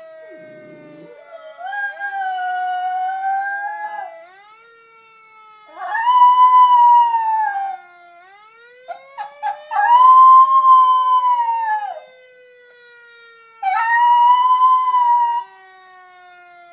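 Schnauzer howling along with a fire siren: four long howls of about two seconds each, with a few short yips between the second and third. Under them the siren wails, rising in pitch and then slowly falling, twice.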